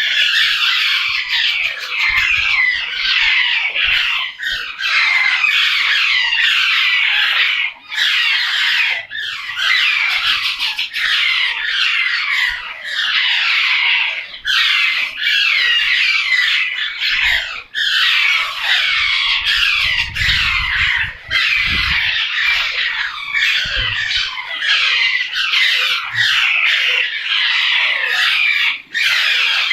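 A large group of parrots chattering and squawking all at once, with many short, overlapping calls, many of them falling in pitch, in a steady din.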